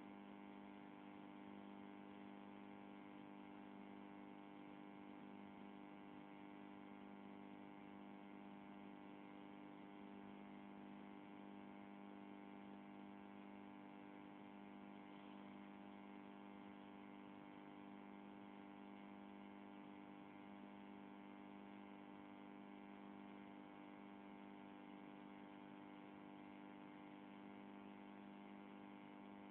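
Near silence with a faint, steady electrical hum: a buzz with many overtones that never changes.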